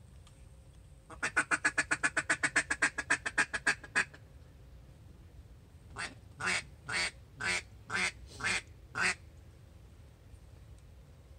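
Duck quacking in two series: a fast run of about twenty short quacks, about seven a second, then a pause and seven slower, evenly spaced quacks, two a second.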